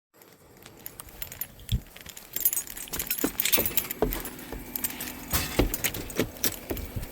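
Keys jangling and things being handled: irregular clicks and rattles, with a few low thumps about 2, 4 and 5.5 seconds in.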